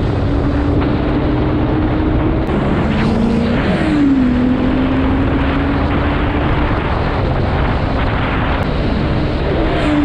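Honda CBR1100XX Super Blackbird's inline-four engine running at cruising speed, heard from the bike under steady wind and road noise. The engine note jumps up and then settles about four seconds in.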